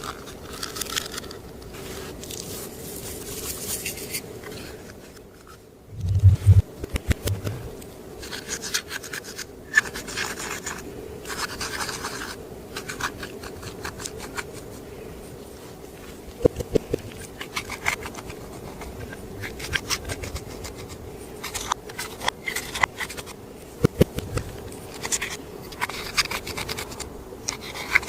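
Makeup being mixed into clear slime: scratching and scraping, with many small sharp clicks and crackles and a dull low thump about six seconds in.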